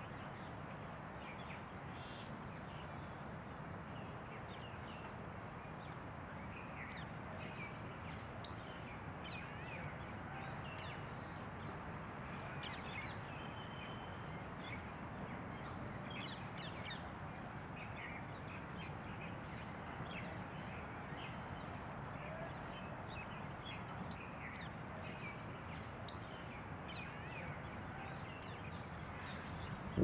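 Outdoor ambience: a steady background hiss with many short, high bird chirps and calls scattered throughout.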